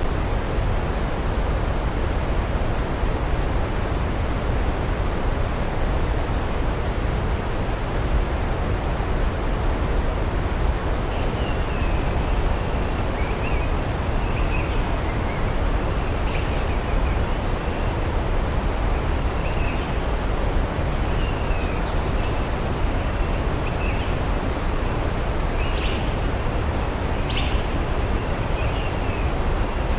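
Steady rushing noise of a waterfall, with faint distant birds chirping intermittently from about a third of the way in.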